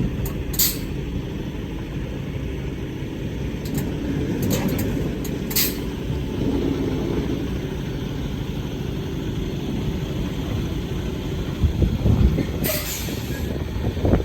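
Truck engine running steadily with a low rumble, with a couple of sharp clicks and, near the end, a few low thumps followed by a short hiss.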